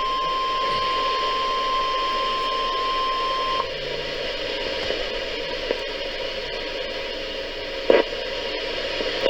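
NOAA Weather Radio 1050 Hz warning alarm tone, the weekly test signal: one steady single tone that cuts off about three and a half seconds in. After it comes the hiss of the radio broadcast, with a brief crackle near the end.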